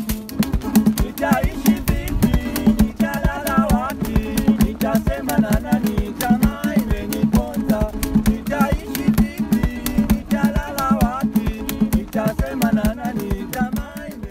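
Background music with a quick, steady beat and a bending melody line over it.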